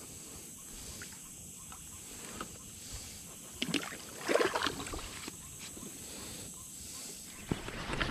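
Fishing kayak on the water: water sloshing and splashing around the hull, with a few knocks and rustles from gear being handled. The loudest splashing comes in a brief stretch about four seconds in.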